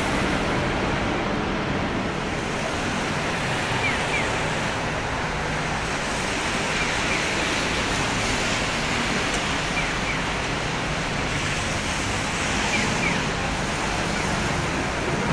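Steady hiss of rain on a city street, mixed with traffic noise. Faint paired chirps repeat about every three seconds.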